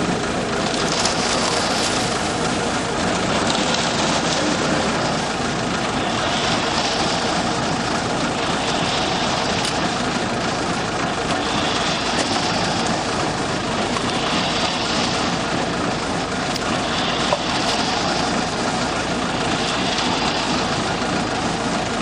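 An EP3.5 self-loading concrete mixer truck running steadily, its engine and mixing drum going together, with a hissing swish that swells and fades every two to three seconds.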